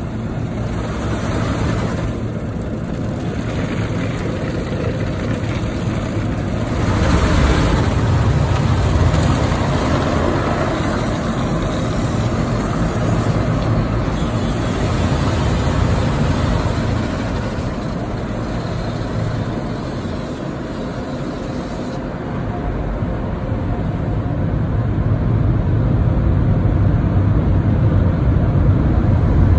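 Automatic car wash heard from inside the car's cabin: water and foam spraying and washing gear working over the windshield and body, a steady low rumble with hiss. It gets louder about seven seconds in and again near the end.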